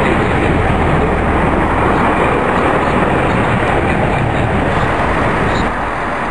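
A Class 166 diesel multiple unit running past close by and pulling away: a loud, steady, dense rumble of engine and wheel noise, dropping a little about five and a half seconds in.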